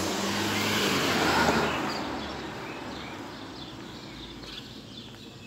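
A car driving past on the street, its engine hum and tyre noise swelling to a peak about a second in and then fading away. Birds chirp faintly in the background.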